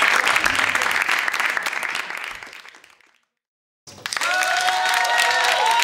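Studio audience applauding, dying away to a cut of dead silence about three seconds in. The applause then resumes, with a few held musical notes sounding under it near the end.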